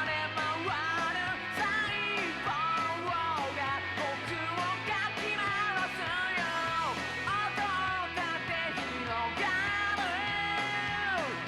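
Rock song with a sung vocal over electric guitar and a steady drum beat: an anime's ending theme.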